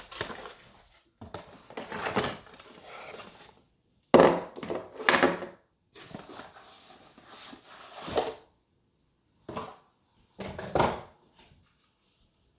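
Packaging and parts being handled during an unboxing: irregular bursts of rustling, scraping and knocks, the sharpest about four and five seconds in, with a few short knocks near the end.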